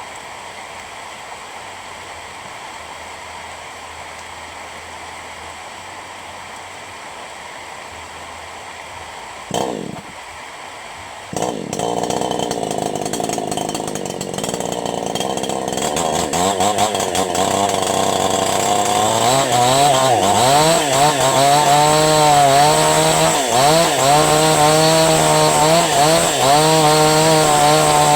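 Falcon Evo 9000 two-stroke chainsaw starting about a third of the way in, after a short burst from the pull. It runs, then revs up, and near the end its engine pitch dips and recovers again and again, as when the chain is loaded in a cut.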